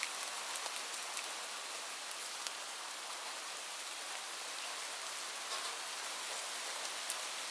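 Light rain falling steadily: an even hiss with scattered individual drops ticking, a few louder ones standing out.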